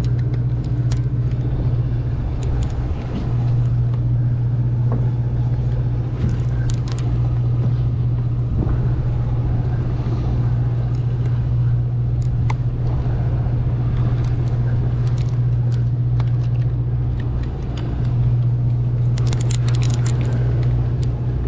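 Large lever-drag conventional fishing reel being cranked under load while fighting a bluefin tuna. A low steady drone runs throughout, with scattered faint clicks, and dips briefly twice.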